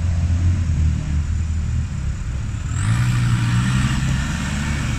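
Engine of a VW Käfer (Beetle) buggy running under load, revving up about three seconds in as it pulls a stuck car out of the mud.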